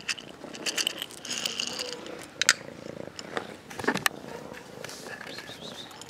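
A street cat eating dry kibble poured from a plastic container onto paving: kibble rattling and crunching, with plastic rustling and sharp clicks, the loudest about two and a half seconds in.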